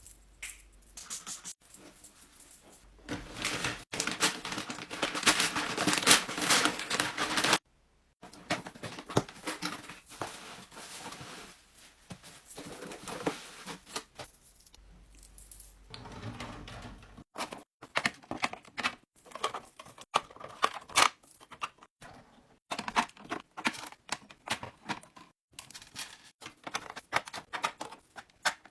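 Packaging being handled and torn open: a few seconds of loud dense rustling and tearing, then a long run of light clicks and taps as items are unpacked and handled.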